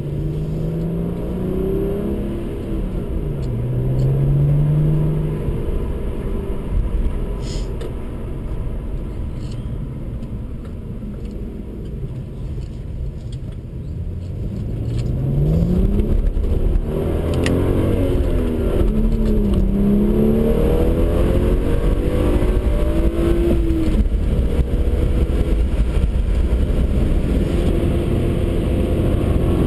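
BMW 135i's turbocharged 3.0-litre straight-six, heard from inside the cabin, pulling hard up through the gears. The revs climb and drop back at an upshift near the start and at several more upshifts about halfway through. Over the second half the engine and tyre noise grows louder and holds a steady loud drone.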